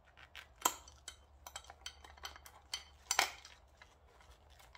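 Small hard clicks and knocks as the motorcycle's speedometer housing is worked into its mounting bracket by hand, with two louder knocks, one just under a second in and one about three seconds in.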